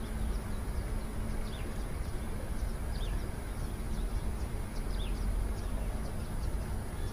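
Wind rumbling on the microphone, with a small bird giving short, high, falling chirps about once a second.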